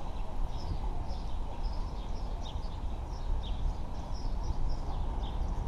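Steady outdoor background rumble, with small birds chirping many times over it.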